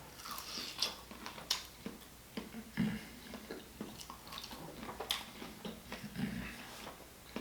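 Close-miked chewing and mouth smacking: irregular wet clicks and smacks several times a second, with a few soft low thumps.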